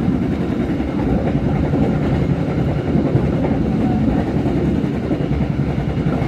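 Passenger train running steadily, heard from inside the coach: a continuous low rumble of wheels on the rails.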